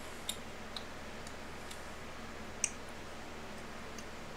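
Scattered light clicks and ticks of someone eating, a few in all, the sharpest about two and a half seconds in, over a steady low hum.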